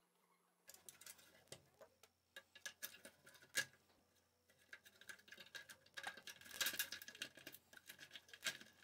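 Faint scattered clicks and light taps of a Tascam 414 Mk2 cassette multitrack's circuit board, plastic case and tape transport being handled and fitted back together. There is one louder tap about a third of the way in and a brief flurry of clicks about two-thirds through.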